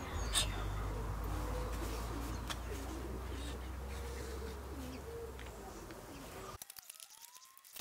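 Pigeon cooing in repeated low, wavering phrases over a low steady hum, with a few light clicks as sheet steel is handled. The sound drops away abruptly about a second before the end.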